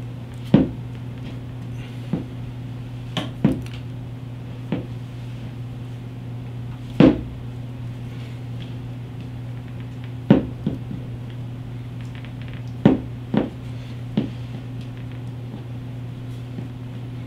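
Tape being pulled off the roll in short tugs and wrapped around a motorcycle handlebar wiring harness, giving about a dozen short, sharp, irregularly spaced tearing and handling sounds over a steady low hum.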